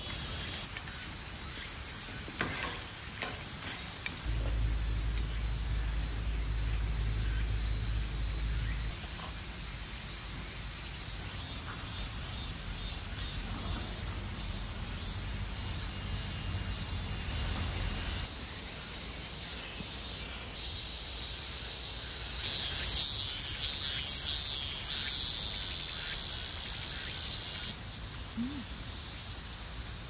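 Summer forest ambience: a steady high chirring of insects with bird chirps for a few seconds in the second half. A low rumble starts about four seconds in and lasts about five seconds.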